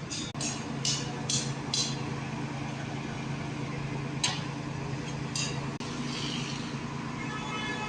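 Dump truck engine running steadily, with a quick series of sharp metallic clinks near the start and two more later on, as the truck tips its load of sand.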